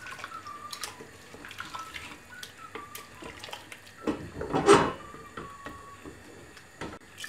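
A wooden spatula stirs chicken pieces in watery curry inside an aluminium pressure cooker: liquid sloshing with small scrapes and knocks. There is a louder slosh about four seconds in.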